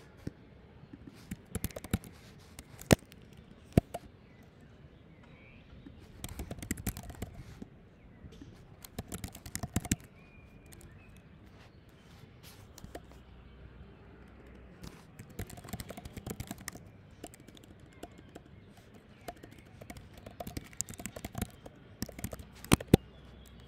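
Computer keyboard typing in irregular bursts separated by pauses, with a few much louder single key strikes.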